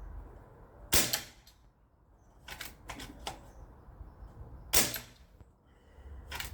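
Two air rifle shots about four seconds apart, each a sharp crack with a brief ring after it, with a few lighter clicks and knocks between them.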